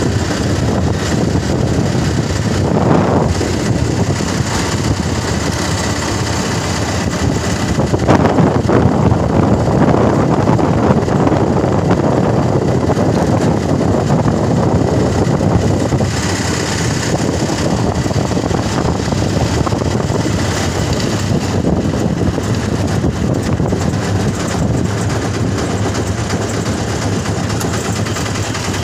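Engine of a moving road vehicle running steadily as it drives along, heard from on board with a continuous rumble; it gets louder for a stretch in the middle.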